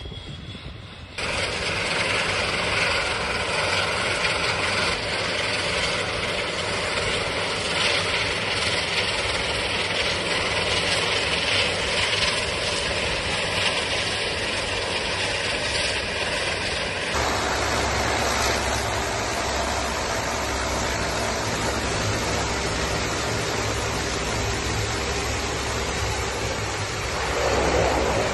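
Canadair CL-415 water bombers' turboprop engines running on the ground during engine power checks, a steady loud noise. It comes in abruptly about a second in, changes suddenly to a deeper hum about seventeen seconds in, and swells briefly near the end.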